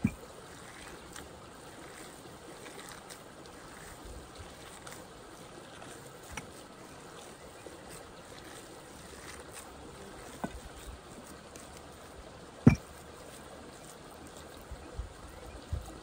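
Steady running water, with a few short knocks scattered through; the sharpest knock comes about three-quarters of the way through.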